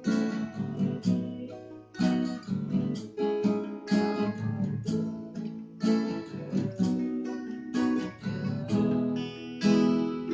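Acoustic guitars strummed together with a bass guitar, playing chords in a steady rhythm with accented strokes about once a second; no singing.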